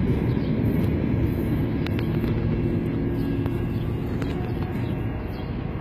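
Steady low rumble of a freight train going by, slowly fading near the end, with a few faint clicks.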